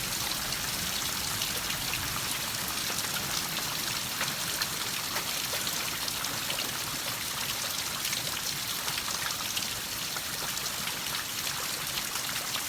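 Steady heavy rain falling, with many small ticks of drops striking nearby surfaces; the storm is easing off after a spell of hail.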